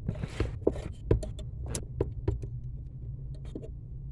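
Irregular small clicks and knocks of hands working parts of the brake pedal assembly under a car's dashboard, over a steady low hum.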